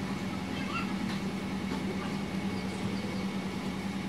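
A steady low hum over a hiss of background noise, with a few faint light ticks.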